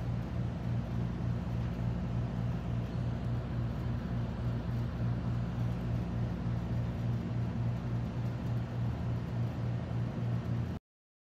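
Steady low machine hum over a hiss, like room air-conditioning or fan noise, unchanging until it cuts off abruptly near the end when the recording stops.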